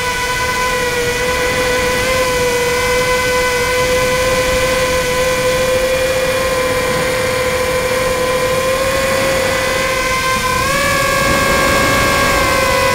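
Tricopter's electric motors and propellers whining steadily in flight, heard from its onboard camera, with wind rushing over the microphone. The pitch steps up slightly near the end as the throttle is raised.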